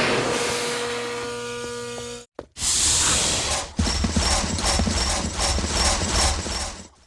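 Star Wars AT-RT walker sound effects: a mechanical servo whine with held tones for about two seconds, a short burst of hiss, then rhythmic mechanical stepping over a low rumble, about three steps a second.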